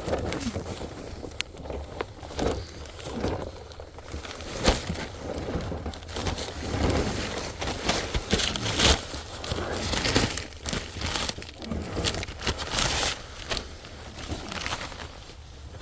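A person crawling through a crawl space under a house: irregular scuffing and rustling of body and knees against the ground and sheeting, with scattered sharp knocks.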